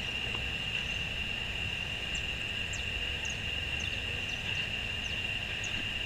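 Outdoor ambience: a steady high-pitched drone, a few short falling chirps, and a low rumble underneath.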